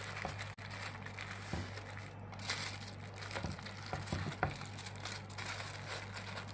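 Butter paper crinkling and rustling as it is rolled and pressed tightly around a shawarma wrap, in irregular soft crackles over a low steady hum.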